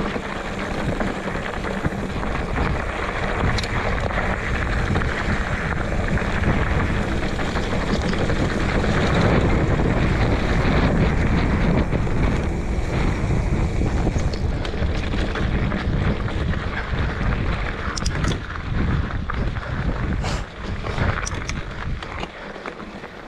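Wind rushing over the microphone while moving along a dirt trail, a steady rushing noise that is loudest around the middle, with a few sharp clicks and rattles in the second half.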